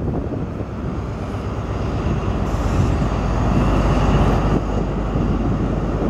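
Class 43 HST diesel power car engine running hard as the train moves past, growing louder around the middle.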